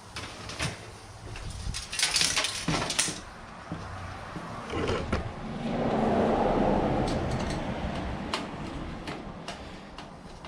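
Computer parts being handled and pulled apart: scattered sharp clicks and knocks, a bright rattling scrape about two seconds in, and a longer, duller scraping swell in the middle, then a few more light clicks.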